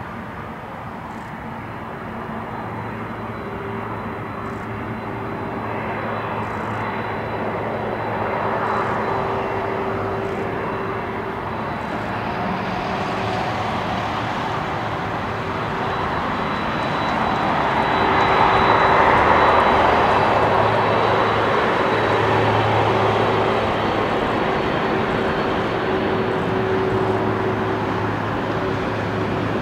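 Boeing 767-300F freighter's two turbofan engines running at taxi power as it rolls past: a steady jet roar with a thin high whine, building to its loudest about two-thirds of the way through and then easing a little.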